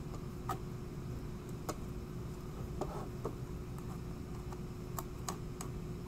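Scattered light clicks and ticks of an Intel NUC mini PC's sheet-metal drive cage and case being handled as the cage is worked loose, about seven in six seconds, irregularly spaced, over a faint steady hum.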